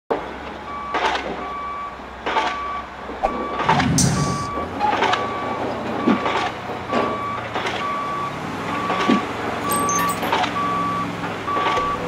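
A heavy truck's reversing alarm beeping steadily, about once a second, over a low engine rumble. Sharp knocks sound roughly every second alongside it.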